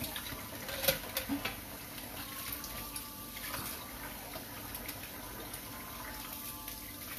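Water running from a tap, with a sharp clatter about a second in.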